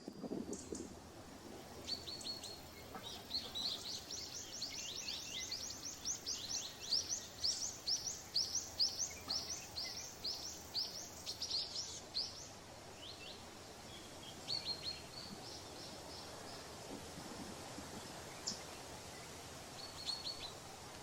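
Common kingfisher calling: a quick run of high, short, downward-sliding notes, about three a second, for several seconds, then a few scattered calls later on.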